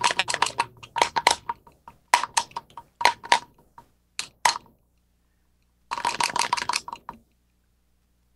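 Typing on a computer keyboard: rapid clicking in several short runs with pauses between, stopping about a second before the end.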